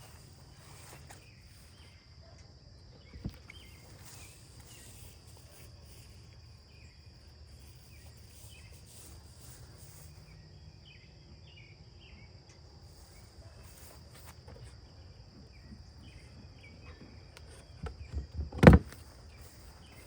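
Honeybees buzzing in a low steady hum around an opened beehive, with a steady high trill over it. A single knock about three seconds in and a quick run of louder knocks near the end.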